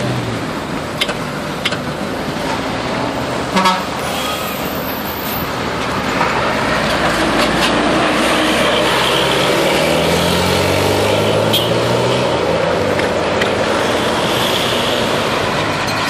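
Road traffic at a level crossing, with a short loud horn toot about three and a half seconds in. From about the middle, a tour bus passes close by, and its engine and horn make low notes that shift in pitch for several seconds.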